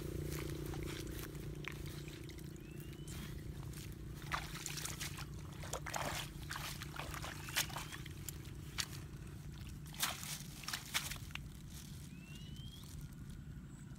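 Irregular splashing and squelching of feet in shallow water and mud across a flooded field, with a few short rising chirps and a faint low hum underneath.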